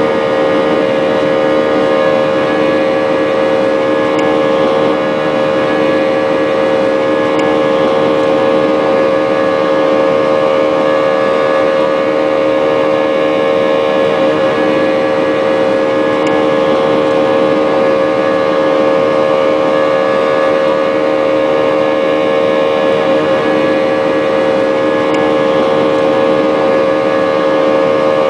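Airbus A320-232's IAE V2500 turbofan engines running at climb power, heard from a cabin window seat beside the engine: a loud, steady drone with a strong, even hum running through it.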